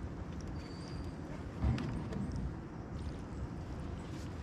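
Collapsible crab pot being hauled up out of river water beside a kayak, water splashing and running off the net, with a dull bump about a second and a half in.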